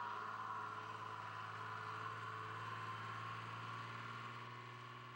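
Engine of an airport aircraft tow tractor driving away, a steady hum with a higher whine, fading as it pulls off.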